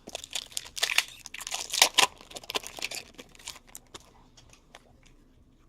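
Plastic trading-card pack wrapper crinkling and tearing as it is opened, with cards being handled. The rustling is busiest for about four seconds, then thins to a few faint clicks.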